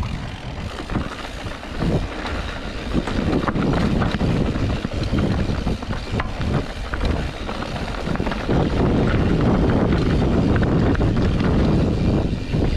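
Mountain bike rolling fast down a dirt and gravel trail: wind buffeting the microphone over tyre noise on the gravel and the bike's chain and parts rattling over bumps. It gets louder about eight seconds in.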